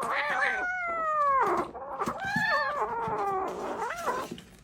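A cat meowing: a few long, drawn-out meows, each falling in pitch, with a shorter one near the end.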